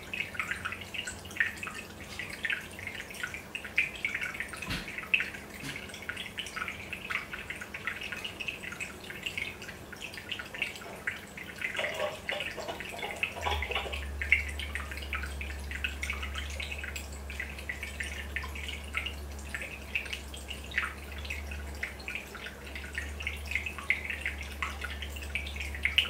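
Aquarium air bubbles rising and popping at the water surface: a steady, busy patter of small drips and splashes. A low hum comes in about halfway through.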